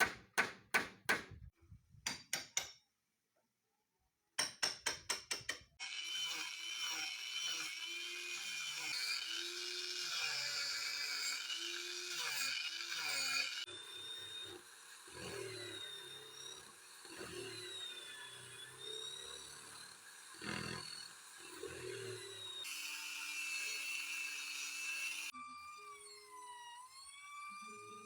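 Construction work: a quick series of sharp strikes, about three a second, followed by a power tool running with a wavering whine. The sound is broken into several abruptly cut segments.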